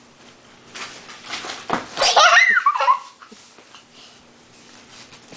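A girl laughing: breathy giggles from about a second in build into high-pitched squealing laughs around two seconds in, then die away.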